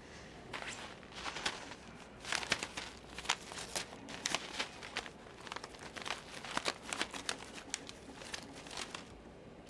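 A sheet of paper being handled, unfolded and folded: irregular crinkling and rustling with sharp crackles, busiest through the middle.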